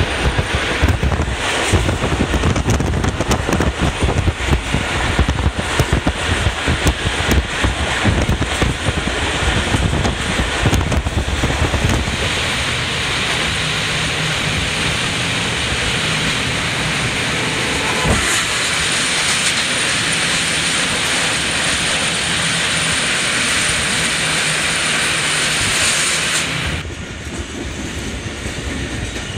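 Passenger train in motion: loud rumbling noise with wind buffeting the microphone for about the first twelve seconds, then a steady hiss that cuts off suddenly near the end.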